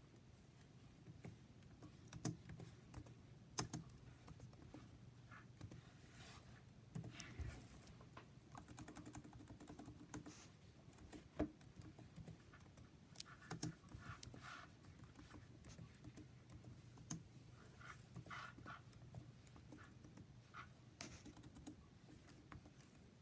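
Near silence with faint, scattered clicks and taps over a low hum.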